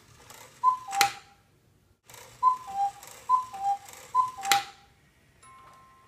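Cuckoo clock calling four times, one call, a pause, then three in quick succession. Each call is a breathy two-note 'cuckoo' falling from the higher to the lower note, and a sharp clack of the mechanism lands at the end of the first and the last call. Faint steady chiming notes begin near the end.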